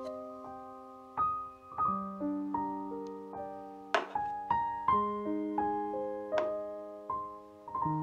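Slow, gentle solo piano music, single notes struck and left to ring out and fade.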